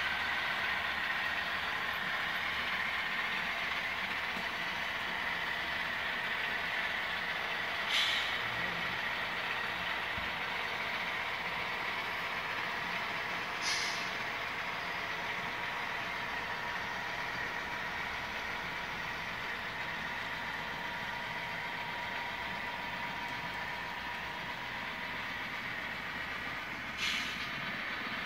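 Model diesel locomotives running a freight train on a model railroad: a steady whirring of motors and wheels on the track with a constant whine. Three short hisses break in, about 8, 14 and 27 seconds in.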